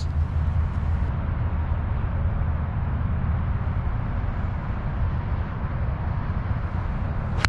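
Steady low rumble of wind on the microphone, then right at the end one sharp click as the golf club strikes the ball off the tee.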